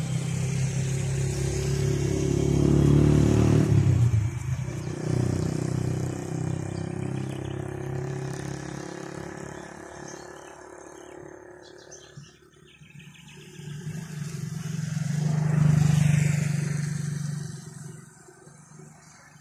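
Two motor vehicles passing one after the other, each engine growing louder and then fading away: the first within the opening seconds, the second peaking about three-quarters of the way through.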